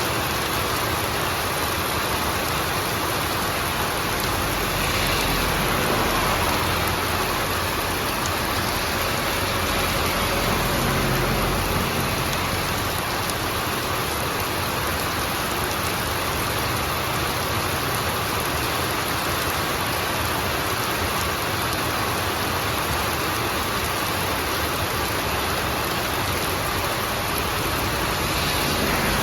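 Steady rain falling and pattering on surfaces, an even unbroken hiss.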